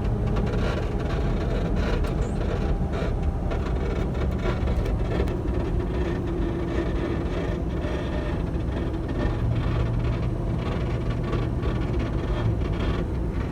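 Lifted Toyota 4Runner driving at about 45 mph: steady road and tyre noise with a low hum that grows stronger about nine seconds in. It is the front-left noise that appeared after a lift and ARB bumper install and comes on only above 40 mph.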